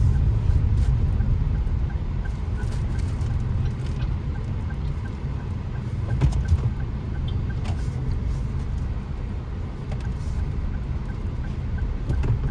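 Car driving, heard from inside the cabin: a steady low road and engine rumble, with faint regular ticking over it.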